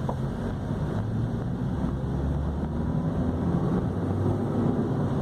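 Chevrolet Corsa Sedan's 1.8 engine running as the car drives, with road and wind noise. Its drone holds steady, the pitch drifting slightly up and down.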